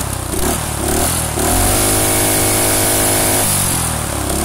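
Predator single-cylinder small engine running with no head gasket, now running much better with its carburettor gasket fitted the right way round. It speeds up about a second and a half in, holds a steady higher speed for about two seconds, then drops back near the end.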